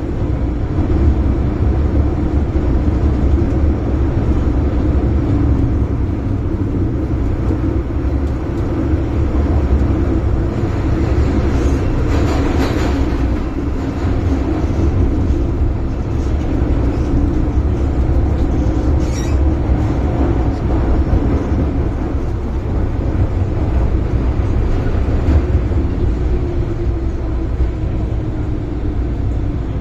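Inside an MTR M-Train running through a tunnel: a steady, loud rumble of the wheels on the rails with the electric traction motors humming. Brief hissing screeches about twelve seconds in and again around nineteen seconds. The motor hum drops slightly in pitch near the end.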